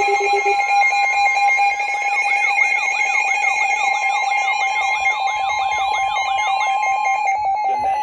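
Several weather alert radios sounding their alarms at once for a severe thunderstorm warning: a steady alarm tone, rapid beeping and a repeating warbling chirp overlap. The warbling and the steady tone stop about seven seconds in, while the beeping carries on.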